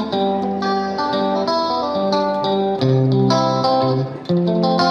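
Background music: a plucked guitar tune, its notes changing every half second or so over a steady lower part.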